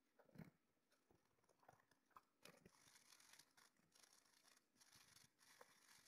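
Near silence with a few faint taps and light scrubbing: a small brush cleaning flux residue off a freshly soldered circuit board.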